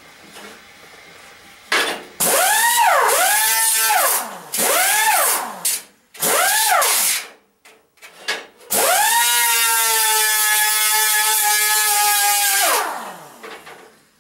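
Electric abrasive cut-off wheel cutting metal: three short bursts where the motor whines up and drops back, then one longer steady cut before the wheel winds down, with a loud grinding hiss while it bites.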